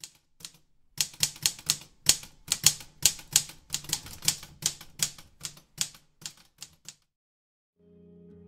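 Typewriter keys striking in a quick, uneven run of about three or four clacks a second, typing out a line, then stopping. Near the end a low, steady chord fades in softly.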